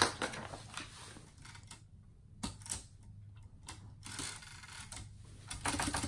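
A 1947 Hermes Baby portable typewriter being handled, with a handful of separate sharp mechanical clicks and clacks spread over a few seconds. A sheet of paper is handled at the start.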